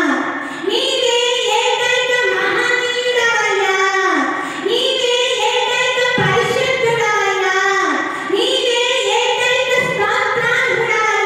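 A woman singing a Telugu Christian worship song solo into a handheld microphone, in long held phrases with short pauses for breath between them.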